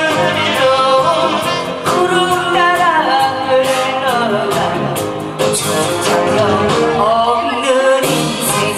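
A woman sings a Korean trot song into a microphone over instrumental accompaniment, her voice sliding and bending between long held notes.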